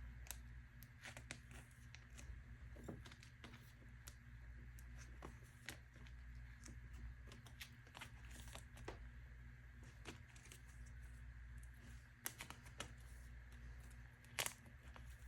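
Faint rustling, crinkling and small clicks of photocards and plastic sleeves being handled, over a steady low hum.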